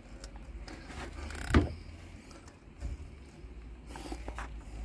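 Snap-on half-inch ratchet on the crankshaft pulley bolt turning a Land Rover Freelander 1.8 K-series engine over by hand, its spark plugs loosened to let the compression out. Scattered clicks and knocks, the loudest a sharp knock about one and a half seconds in, over a steady low rumble.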